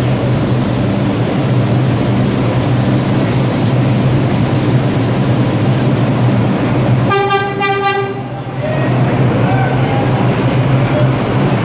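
Vintage New York City subway museum train (the Train of Many Colors) pulling slowly into an underground station, its wheels and motors rumbling steadily. About seven seconds in it sounds one horn blast lasting about a second.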